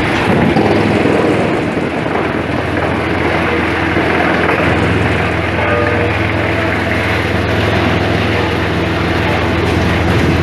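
Industrial wood-processing machinery running, a loud steady mechanical din with a low hum that firms up about halfway through.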